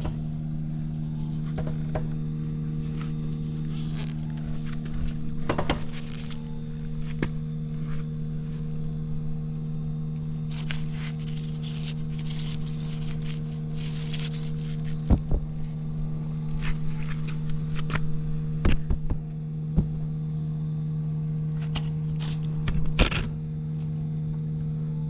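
Suzuki Volty's single-cylinder engine idling steadily and very quietly, with no abnormal noise. A few scattered clicks and knocks sound over it.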